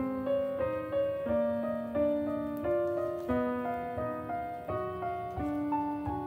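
Background piano music: a calm melody of notes, each struck and then fading, changing about every half second.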